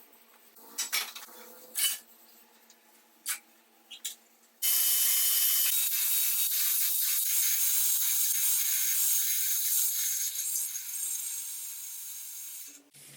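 A few knocks and clicks of handling, then a power tool starts suddenly and runs steadily with a high-pitched noise. It tails off and stops shortly before the end.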